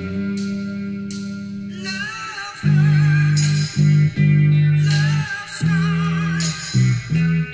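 Electric bass guitar played with the fingers: a long held low note, then a run of shorter notes with brief stops between them. A higher, wavering melody line comes in about two seconds in.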